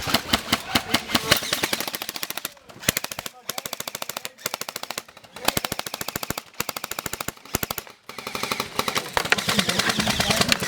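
Airsoft guns firing on full auto: long strings of rapid shots in several bursts, with short breaks between them.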